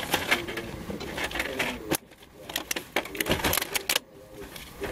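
Irregular clicks and light knocks of hard parts being handled, in quick clusters, with short lulls about two seconds in and again near four seconds.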